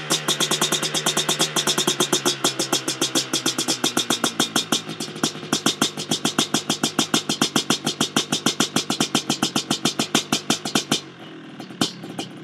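The two-stroke single-cylinder engine of a 1985 Honda ATC 250R idles after a cold start, a rapid, even popping through its Paul Turner racing pipe and silencer. Near the end the idle sags and almost dies, then picks up again.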